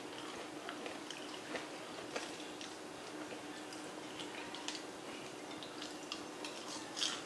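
Soft chewing and small mouth clicks of people eating fried catfish nuggets and crinkle fries, with scattered light ticks and a slightly louder cluster of clicks near the end. A faint steady hum runs underneath.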